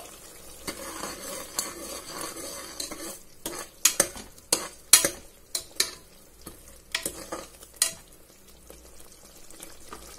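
A metal ladle stirs onion-tomato masala frying in a pressure cooker, scraping and clinking against the pot, with a run of sharp clinks in the middle. Underneath, the masala sizzles and bubbles in the oil.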